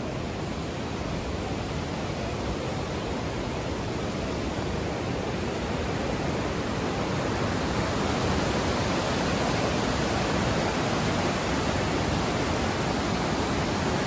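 Parvati River rushing over boulders: a steady rush of whitewater that grows slightly louder through the first half, then holds.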